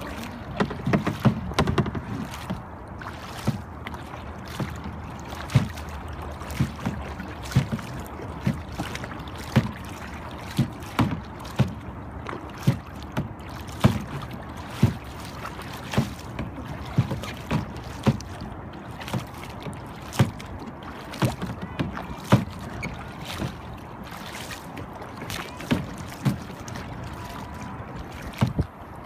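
Kayak paddling: a double-bladed paddle dipping and splashing into the water stroke after stroke, with sharp short knocks about once a second over a steady wash of water.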